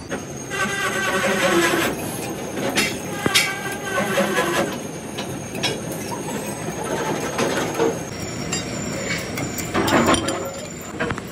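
Metal lathe turning a mild-steel truck rim plate, the cutting tool scraping and squealing against the steel, with a few sharp metallic knocks.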